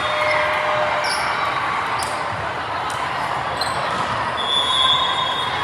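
Volleyball being struck during a rally, a few sharp smacks about a second apart, over the steady chatter of a crowd in a large gym. A short high-pitched tone sounds near the end.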